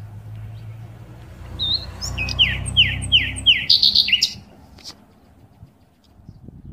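Birds chirping: a run of about six quick, downward-sliding chirps, followed by a single click.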